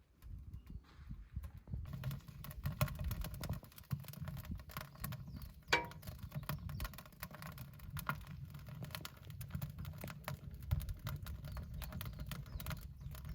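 Wood stove burning during its first firing: dense, irregular crackling and clicking over a low rumble.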